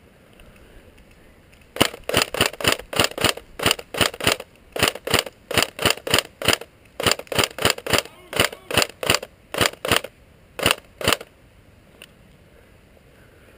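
Airsoft gun firing single shots in quick succession: about thirty sharp shots, a few per second, in runs broken by brief pauses, stopping a couple of seconds before the end.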